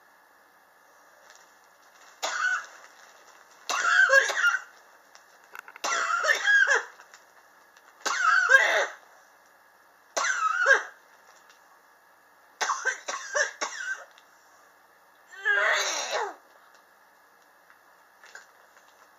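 A person coughing in about seven separate bouts. Most are single coughs of under a second, and one is a quick run of short coughs about thirteen seconds in. This is a persistent chronic cough that has gone on for years.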